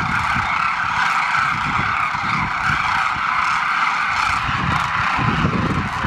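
A large flock of demoiselle cranes calling all at once: a continuous din of many overlapping calls, with no single call standing out, over an irregular low rumble.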